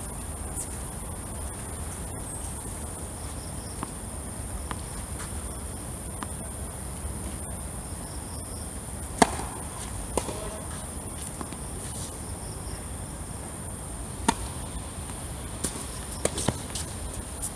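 Tennis ball being hit with rackets in a doubles rally on a hard court: sharp single pops, the loudest about nine seconds in, then more over the last few seconds. A steady high chirring of insects runs underneath.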